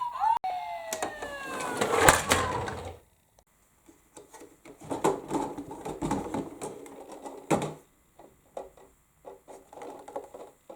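Toy emergency vehicle's electronic siren sounding in repeating falling sweeps, with loud plastic clicks, cutting off about three seconds in. After that, scattered plastic clicks and rattles from the toy cars being handled and run.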